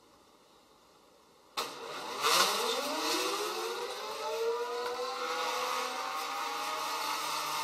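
Geared stepper motors of a wire-driven parallel robot's winch units start suddenly with a click about a second and a half in. Their whine rises in pitch over the next few seconds as they speed up, then holds steady while they reel the wires and move the carriage.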